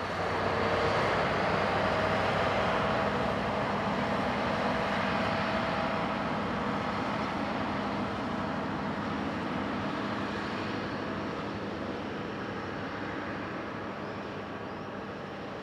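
DB Class 218 diesel-hydraulic locomotive's V12 engine running under power as it hauls a double-deck passenger train away: a steady drone with a low hum, loudest about a second in and then slowly fading as the train recedes.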